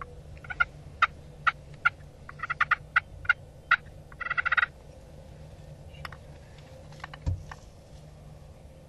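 Eastern wild turkeys calling: a string of short, sharp calls, then a tom's rapid rattling gobble about four seconds in. A few more sharp calls and a dull low thump follow near the end.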